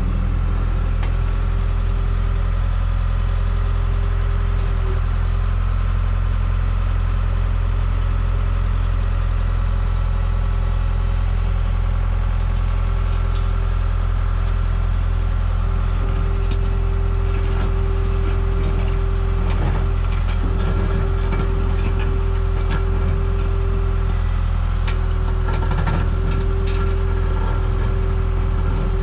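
New Holland skid steer's diesel engine running steadily while its hydraulic auger attachment drills a post hole. From about halfway through, knocks and rattles from the auger working in the ground join in.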